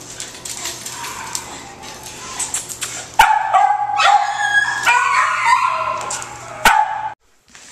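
Dog barking and yelping in a kennel, loudest in a run of high yelps from about three seconds in, with two sharp knocks. The sound cuts off abruptly about a second before the end.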